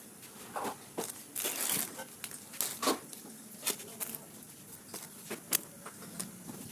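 Wrapping and packaging handled by hand during a gift unboxing: irregular rustles and crackles with sharp little clicks, the longest rustle about a second and a half in.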